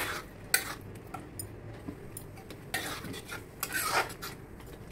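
Metal spatula scraping and knocking against a metal kadhai while stirring a thick, fried tomato masala with potato pieces, in a handful of separate strokes.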